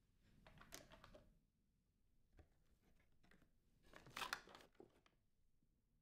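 Faint rustling and scraping of cardboard packaging and plastic vacuum parts being handled. It comes in two short bursts, about half a second in and about four seconds in, and the second is louder.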